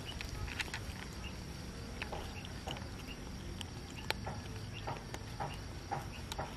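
Two cats chewing dry kibble, with irregular crisp crunches and clicks as they bite and eat from a plastic bowl.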